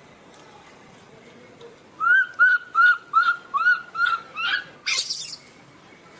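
Baby macaque giving a rapid series of about eight short, high, arched distress calls, roughly three a second, that rise and fall in pitch. The calls are the sign of a frightened infant. A short harsh hissing burst follows about five seconds in.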